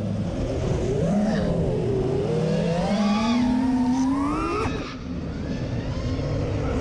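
FPV racing quadcopter's brushless motors whining over a rush of air, the pitch sliding up and down with the throttle; a long climb in pitch breaks off in a sudden drop about four and a half seconds in.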